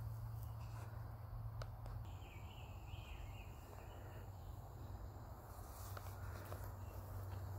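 Faint outdoor garden ambience: a few soft chirps and a thin steady high-pitched tone, with a couple of light footsteps, over a low rumble.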